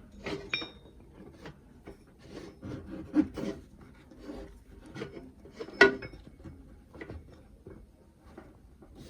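Belt being worked by hand onto the wheel of an Emel 8500 industrial sewing machine: scattered rubbing, clicks and knocks, with a short ringing metallic clink about half a second in and a louder one about six seconds in.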